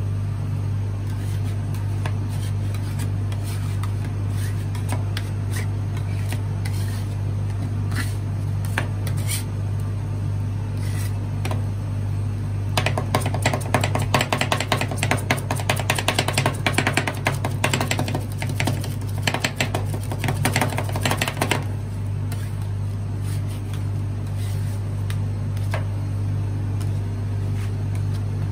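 Metal spatulas scraping and tapping on a stainless steel ice-roll cold plate as marshmallow ice cream is worked and chopped, with a quick run of rapid chopping strokes in the middle. A steady low hum from the machine runs underneath.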